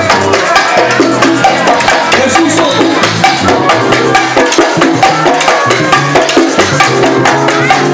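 A live Latin dance orchestra playing, with piano, upright bass and sharp percussion hits over a steady beat.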